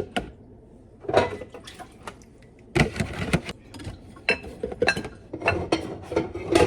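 Dishes and utensils being handled: an irregular string of knocks and clinks.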